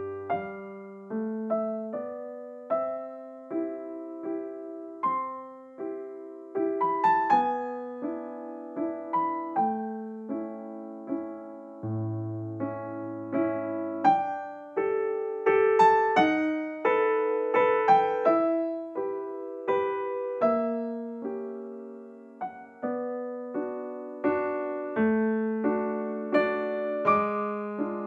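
Background music: a gentle piano melody over soft chords, each note struck and then fading.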